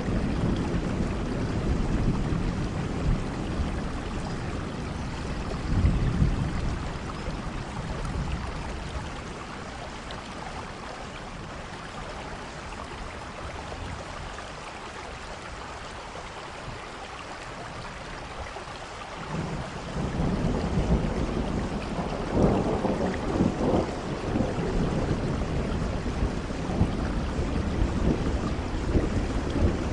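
Steady rain with rolling thunder. The low rumbles die away for several seconds in the middle, then a new rumble swells in about twenty seconds in.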